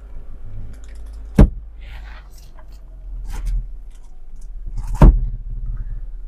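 The 2024 JAC JS5's sun visors being flipped by hand: two sharp clacks, one about a second and a half in and one about five seconds in, with a brief crinkle of their protective plastic film and a few light ticks in between. A low steady hum of the idling engine sits underneath.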